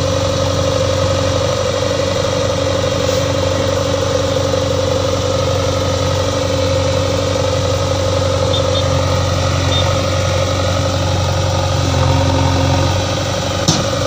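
Diesel engine of a JCB 3DX backhoe loader running steadily while it works, with one sharp knock near the end.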